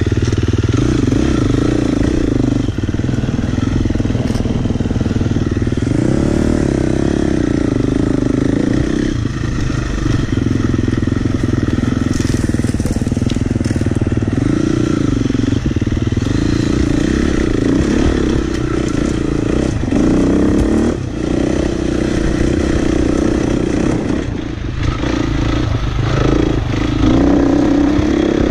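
Husqvarna FX 350 four-stroke single-cylinder dirt bike engine running under changing throttle, its pitch rising and falling again and again as the rider opens and closes the throttle. Occasional knocks and clatter come from the bike bouncing over rocks.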